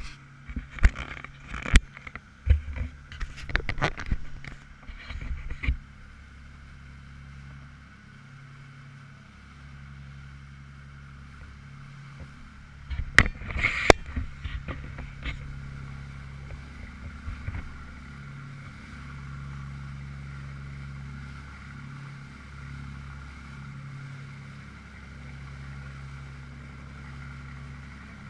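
Boat engine running steadily under way, a low hum that swells and fades. Knocks and rubbing from handling the pole-mounted camera come in the first few seconds and again about halfway.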